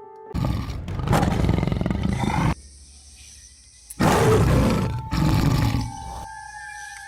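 A tiger roaring twice, each loud roar lasting about two seconds, with a pause between them, over faint steady background music tones.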